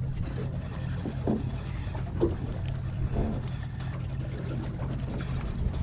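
Fishing boat's engine idling with a steady low hum, under a wash of wind and water noise, with a few faint voices.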